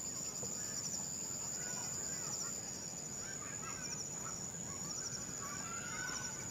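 Nature ambience: scattered bird calls over a steady high-pitched insect buzz, with short trills repeating every second or so.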